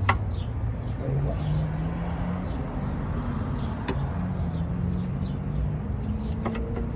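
Birds chirping over a steady low rumble, with a few sharp clicks, three in all, at the start, about four seconds in and near the end.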